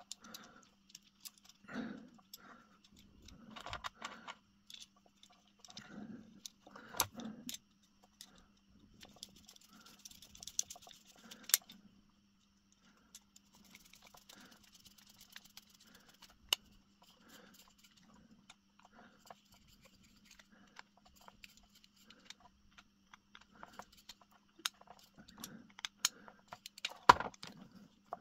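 Small clicks, taps and scrapes of handling an old brown round-pin mains plug while wiring it, with a screwdriver turning its terminal screws; a louder click near the end. A faint steady hum runs underneath.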